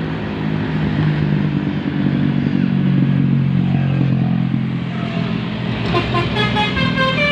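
Intercity bus passing with its engine running steadily. About six seconds in, its telolet horn starts playing a quick melody of several changing tones.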